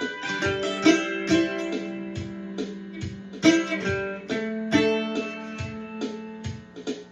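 Ibanez M500-ESB guitar strung with D'Addario strings, played as single plucked notes about twice a second over a low note that keeps ringing, growing softer near the end.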